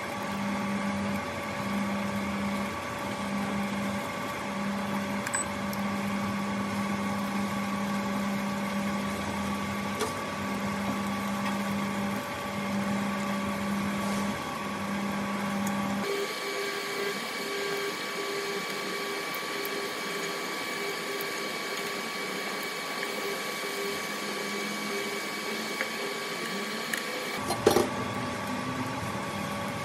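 Portable induction hob running while it heats a pot: a steady electrical hum and whine, with a low tone that cuts in and out about once a second as the hob cycles its power. Partway through, the pulsing tone shifts higher. Near the end there is a short knock.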